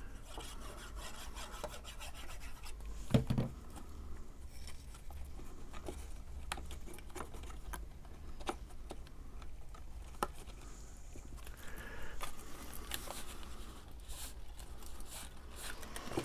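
Paper cardstock pieces being handled and pressed into place on a box card: soft rubbing and rustling with scattered small clicks and taps, and one louder knock about three seconds in.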